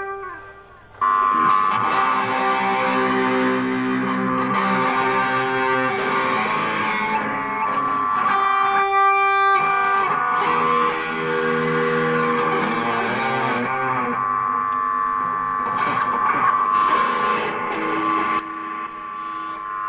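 Electric guitar played through an effects pedal: sustained notes and chords, with one bright, overtone-rich held note about halfway through.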